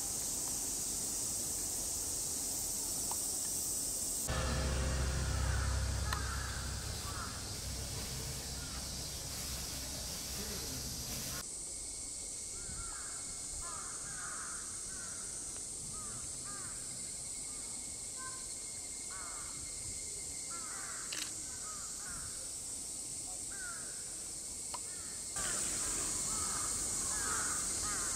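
Outdoor summer ambience: a steady high-pitched insect drone, typical of cicadas, with many short bird calls over it. The sound changes abruptly a few times at cuts, and there is a brief low rumble about four seconds in.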